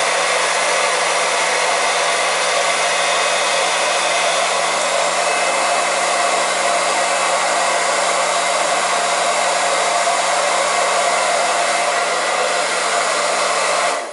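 Portable electric transfer pump running steadily as it pumps propylene glycol antifreeze from a bucket into a boiler heating system. It cuts off suddenly near the end as it is switched off.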